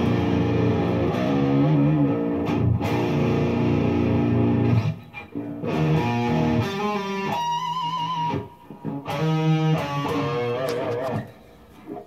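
Electric guitar played through a Peavey XXL amplifier head and its speaker cabinet: about five seconds of ringing chords, then single notes with vibrato, dying away about eleven seconds in.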